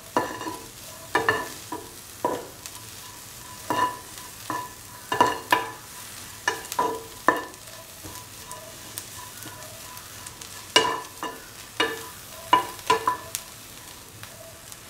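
A spatula stirring and scraping dry shrimps in a hot pan as they are sautéed until brittle: irregular scrapes and taps, each with a faint ring, easing off in a lull in the middle and picking up again after it.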